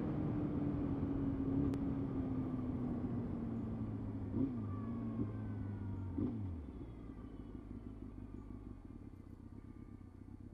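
Motorcycle engine running under way, its note falling steadily as it slows, then dropping off to a quieter sound about six and a half seconds in. The engine sounds bad and loses power after about twenty minutes of running, which the rider takes for it running on fewer cylinders.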